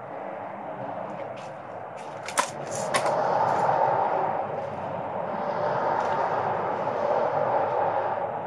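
Break-barrel Hatsan 125 Sniper .25 air rifle being cocked for the next shot: two sharp clicks just over half a second apart, a little over two seconds in, as the barrel is broken open. From the second click on, a steady noise carries on louder underneath.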